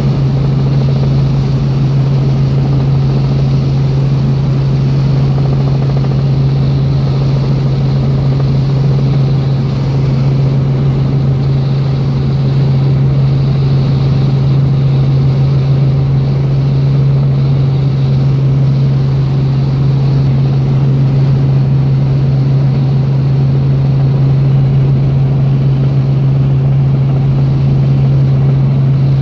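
Helicopter in flight heard from inside its cabin: a loud, steady drone with one strong unchanging low hum under the rotor and engine noise.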